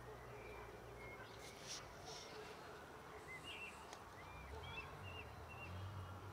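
Faint outdoor background with a low hum and scattered short, high chirps, plus a few faint clicks.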